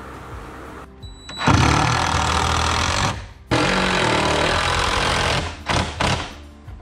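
Impact driver hammering long screws into 2x4 wall framing: two runs of about two seconds each, then two short bursts to seat the screw.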